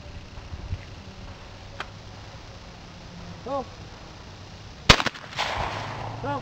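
A short shouted call, then about five seconds in a single shotgun blast with its echo rolling back for about a second, then another short shouted call near the end, the skeet shooter calling for the next target.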